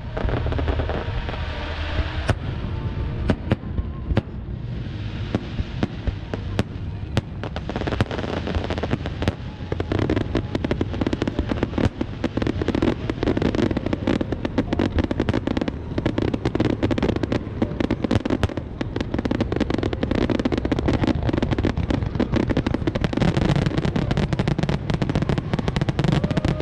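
Fireworks going off: many bangs and crackles in quick succession, thickening into a near-continuous barrage about ten seconds in.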